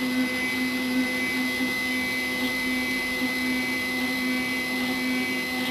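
Stepper motor of a CNC-converted Sieg X2 mini mill driving the table across at a steady jog speed: an even, continuous whine with a high tone above it.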